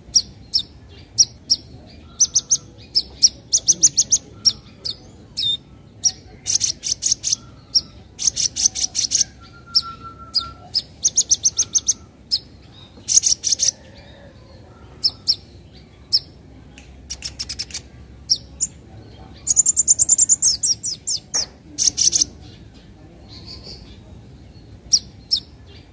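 Young van Hasselt's sunbird (kolibri ninja) chattering: rapid trains of short, high, scratchy 'cret-cret' chirps, repeated in bursts with short pauses between them.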